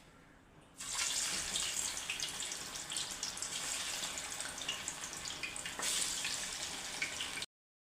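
Fish frying in hot oil, a dense sizzle full of small crackles, starting about a second in and cutting off suddenly near the end.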